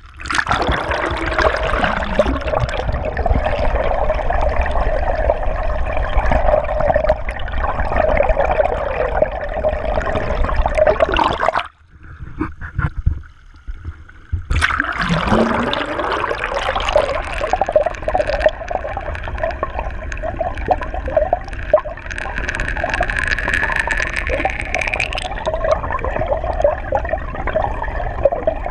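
Water rushing and gurgling over a camera housing dipped at and below the surface as a dinghy moves along, with a steady hum underneath. The sound cuts out for about three seconds midway, then the rushing comes back.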